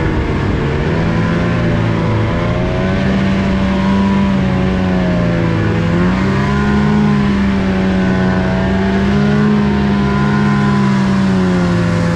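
Snowmobile engine running steadily under throttle as the sled rides through powder snow, its pitch dipping a little and coming back up about halfway through.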